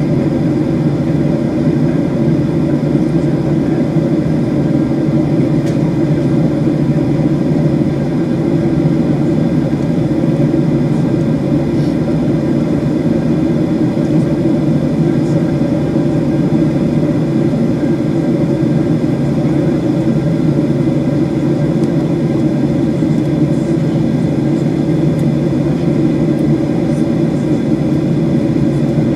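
Steady cabin noise of a Boeing 737 taxiing, its CFM56 engines running at taxi power with a constant low hum, heard from a seat over the wing.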